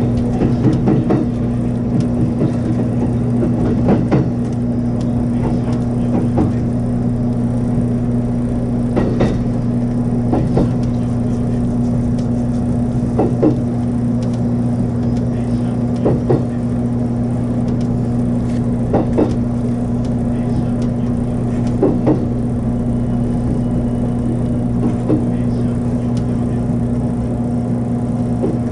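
Cab ride in a 783-series electric train running slowly, a steady low hum with a rail-joint clack every two and a half to three and a half seconds, the clacks spacing out a little as it slows into a station stop.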